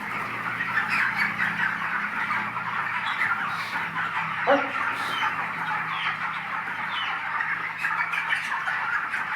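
A flock of 25-day-old broiler chickens calling continuously, a dense chatter of many overlapping peeps and clucks, with one louder call about four and a half seconds in. A faint steady low hum runs underneath.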